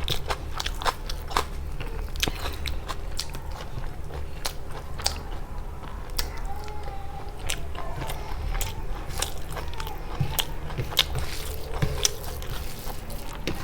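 A person chewing and biting food close to the microphone, with irregular crisp crunches and wet mouth clicks throughout.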